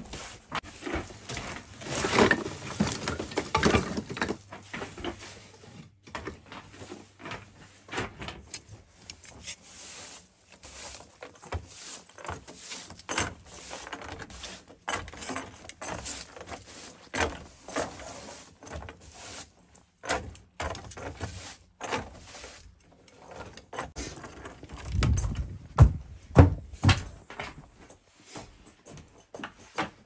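A string of short clicks, knocks and scrapes from things being handled, thickest in the first few seconds, with a few heavier low thuds near the end.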